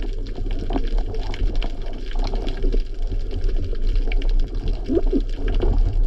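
Underwater sound heard through an action camera's waterproof housing: a steady low rumble of moving water with scattered small clicks and crackles.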